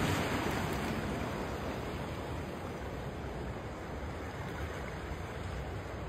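Small sea waves breaking and washing among shoreline rocks: a splash of surf that eases over the first couple of seconds into a steady wash of water.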